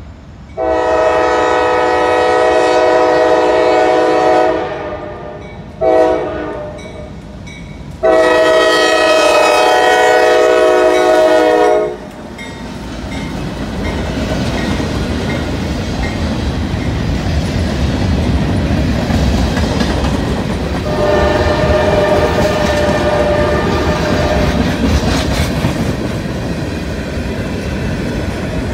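Horn of a CSX GE ES40DC diesel locomotive sounding for a grade crossing: a long blast, a very short one, then a second long blast. The locomotive then passes and its freight cars roll by with a steady rumble and clickety-clack of wheels on rail. A further, quieter long horn blast sounds about two-thirds of the way through.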